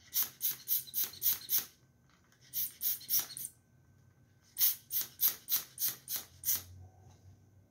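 Hand-pumped spray bottle puffing edible pearl dust onto a cake: quick sprays about three a second, in three runs of several puffs with short pauses between.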